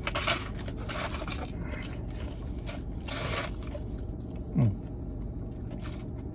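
Close-up eating sounds: chewing fried fish and rice, with a plastic fork scraping in a cardboard takeout box, over the steady hum of the car's air conditioning. About two-thirds of the way through comes one short, loud hum from the eater that falls in pitch.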